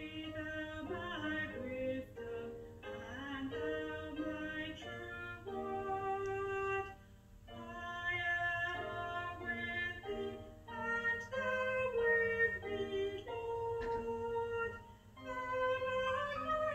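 A recorded hymn: sung melody with held notes moving step by step, with short breaks between phrases.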